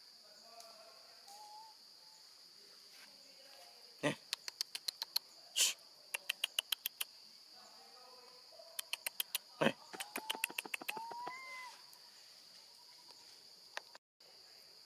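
A steady high-pitched insect chorus, like crickets, with two runs of rapid sharp clicks, about eight a second, a few seconds in and again near the middle, and a few faint short chirps.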